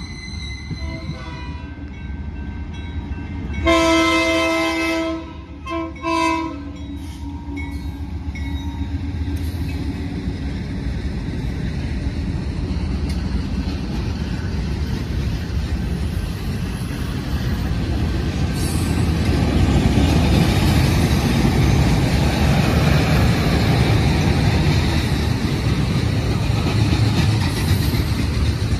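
A train horn sounds a long blast about four seconds in, then two short ones. A double-stack intermodal container train then rolls past with wheels clacking over the rails, the rumble growing louder through the second half.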